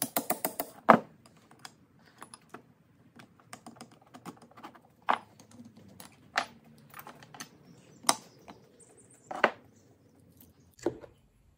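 Hammer tapping a pin punch against a Porsche 996 rear brake caliper: a quick run of sharp metal taps in the first second. Then occasional clicks and clunks as the caliper's pads and parts are handled.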